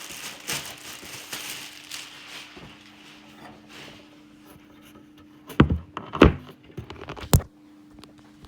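Phone or camera being handled and set down: rustling, then three sharp knocks in the second half, over a faint steady hum.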